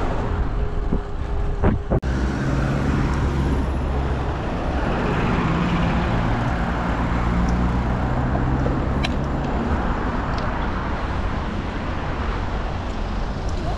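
Steady road traffic noise, with a motor vehicle's engine humming close by through most of it.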